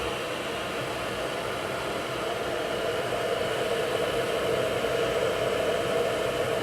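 Electric kettle heating water close to the boil: a steady rushing hiss that grows gradually louder as the water starts to bubble.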